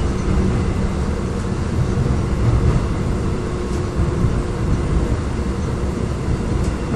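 Korail Line 3 electric subway train running, heard from inside the passenger car: a steady low rumble of wheels on rail and running gear, with a couple of faint ticks.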